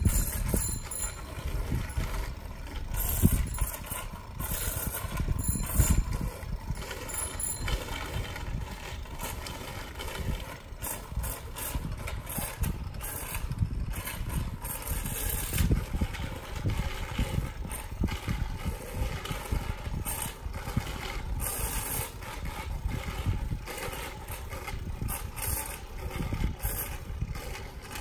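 Bicycle rattling and its tyres rolling over a park path, with wind on the microphone: a steady low rumble broken by many irregular clicks and clatters.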